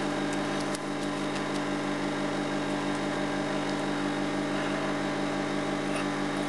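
Steady mechanical hum of an unseen appliance or motor, with a few faint clicks in the first second and a half.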